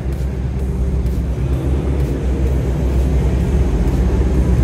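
Ford Mustang Shelby GT500's supercharged V8 rumbling at low speed as the car rolls slowly forward, growing steadily louder as it approaches, inside a concrete parking garage.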